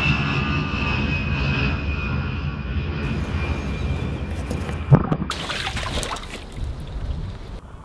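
Aircraft engine drone with a slowly falling whine that fades out, then about five seconds in a single thud and splash as something drops into a small garden pond, followed by a short rush of disturbed water.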